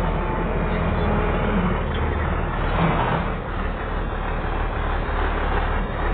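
Chardikala combine harvester running steadily: a low engine hum under a dense, even mechanical noise.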